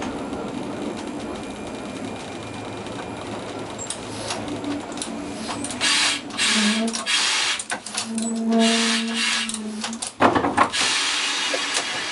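Trieste–Opicina tram creeping up to the blue pushing car at the funicular section, heard from the driver's cab. A steady running hum gives way after about six seconds to bursts of hiss and sharp clicks, with a steady buzzing tone of about two seconds near the end.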